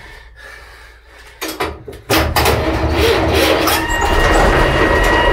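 A few clicks, then about two seconds in the six-cylinder diesel of a Northwest 80D power shovel starts being cranked over, a loud, steady rumble with a steady whine joining about a second and a half later. It is being fed fuel on the rack and briefly fires.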